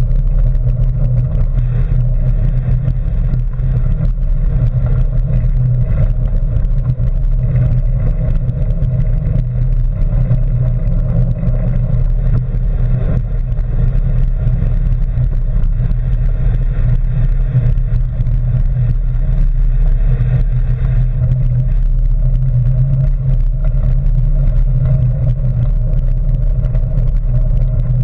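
Steady low rumble of a bicycle being ridden, as picked up by a GoPro Hero3: tyre and frame vibration on the trail surface.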